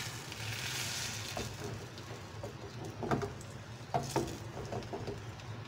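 Beaten egg poured into hot oil in a nonstick frying pan, sizzling, loudest in the first second or so. A few light knocks about three seconds in and twice around four seconds.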